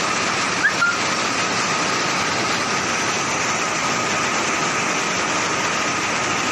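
Fiberglass mesh warp knitting machines running on a factory floor: a steady, dense mechanical din with a faint high whine. A brief high chirp sounds just under a second in.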